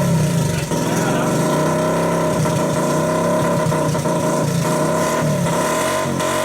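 A Honda CT110 postie bike's single-cylinder four-stroke engine running through an exhaust with the muffler baffle cut out. It runs steadily, with the revs rising and falling a little a second or two in.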